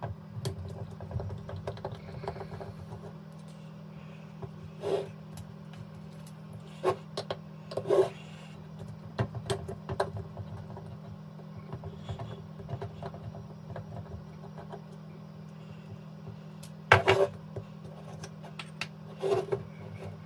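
A screwdriver working the throttle-plate screws out of a BMW S38 aluminium throttle body: scattered sharp metal clicks and knocks, the loudest about three-quarters of the way through, over a steady low hum.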